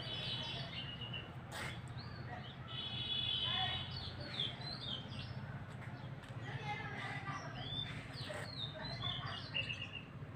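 Small birds chirping with many short rising and falling notes, and a fast trill about three seconds in.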